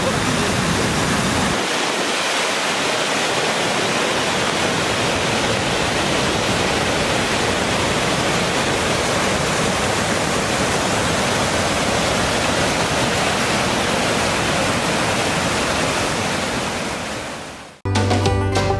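Rushing whitewater of a foaming river cascade and waterfall, a steady loud wash of water. It fades out near the end and music starts.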